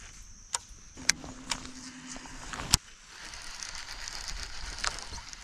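Fishing reel and tackle: a steady hum for under two seconds that ends in a sharp click, then a soft high whirr with a few scattered clicks.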